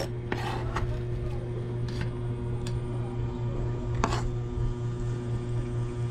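Kitchen knife tapping and scraping on a wooden cutting board, a handful of separate knocks as chopped red onion is gathered up, over a steady low hum.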